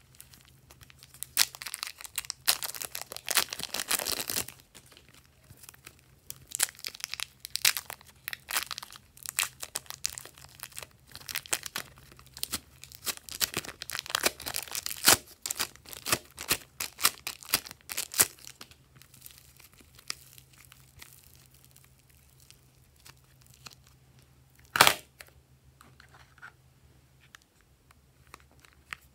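Plastic wrapping on packets of soft modelling clay crinkling and tearing as it is peeled open and the clay pulled free, a dense crackly run that is loudest about three to four seconds in and dies away after about nineteen seconds. Then quieter handling, with one sharp click about twenty-five seconds in.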